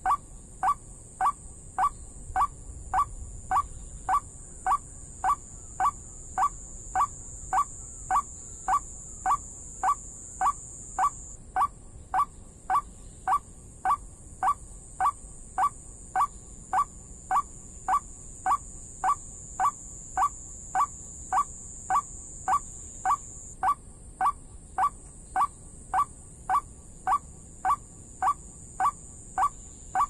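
A water-bird lure call: one identical short note repeated with perfect regularity, a little under two a second, without a break. Its unvarying loop suggests a recording played over a speaker to draw watercock or white-breasted waterhen to the hanging snares.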